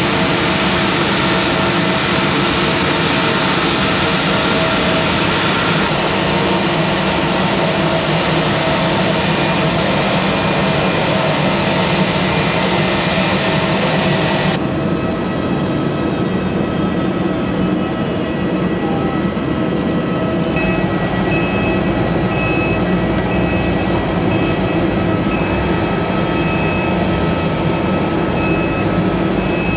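Loud, steady drone and whine of a parked Airbus A321 airliner and the airport ramp vehicles working around it. The sound changes abruptly twice. From about two-thirds of the way in, a high beep repeats.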